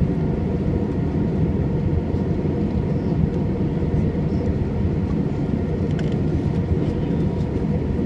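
Steady cabin noise inside a jet airliner in flight: a low, even roar of the engines and the air rushing past the fuselage.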